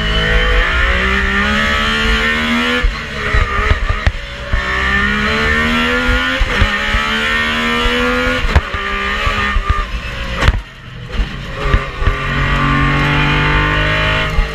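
MG Metro 6R4 rally car's V6 engine, heard from inside the cockpit, revving hard and climbing in pitch through the gears. The pitch falls back at each gear change. About ten and a half seconds in, the engine briefly goes quieter as the throttle is lifted, then picks up again.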